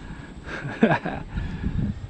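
Wind buffeting the microphone, with a brief sound falling in pitch a little under a second in.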